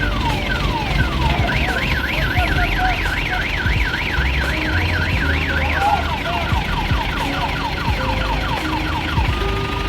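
Vehicle's electronic warning alarm cycling through its tones: repeated falling sweeps, then a fast warble of about four cycles a second, then falling sweeps again, with steady beeps starting near the end. A low engine rumble runs underneath.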